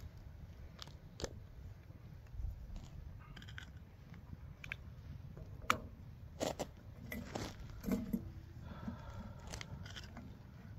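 A stainless steel kettle lifted off a metal campfire grate with scattered clinks and knocks, then hot water poured from it into a cup.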